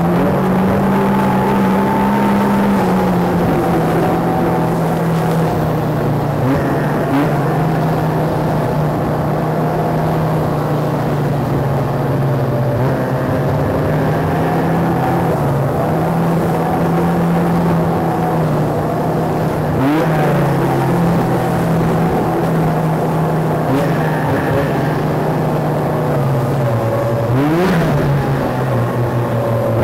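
Two-stroke snowmobile engines running at a steady fast idle, their pitch wavering slightly, with short throttle blips about two-thirds of the way through and again near the end.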